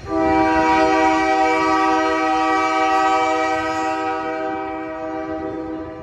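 Union Pacific diesel locomotive's air horn sounding one long chord of several notes, a warning blast for the road crossing ahead. It starts abruptly and fades a little over the last second or two.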